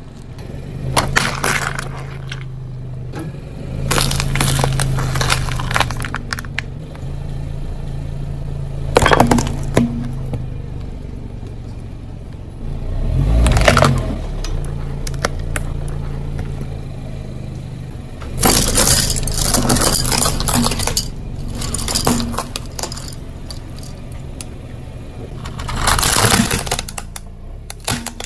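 A car tyre rolling over and crushing plastic toys, in several separate bursts of cracking, snapping and crunching. A steady low engine hum runs underneath.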